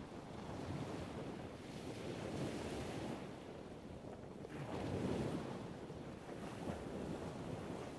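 Wind buffeting the microphone on a ferry's open deck at sea: a steady rushing noise, mostly low, that swells and eases in gusts.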